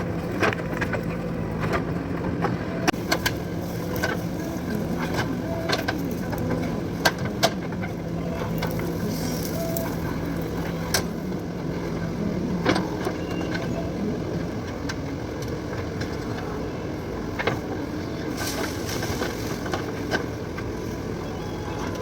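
JCB 3DX backhoe loader's diesel engine running steadily under work, with scattered sharp clanks and knocks. The engine's steady note drops away about halfway through, just before a louder knock.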